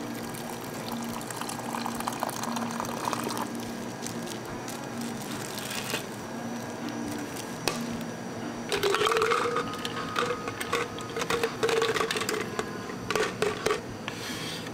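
Hot water pouring from a dispenser tap into a plastic tea-infuser pitcher. In the second half there is a louder stretch of liquid sound with a steady tone and many clinks and knocks.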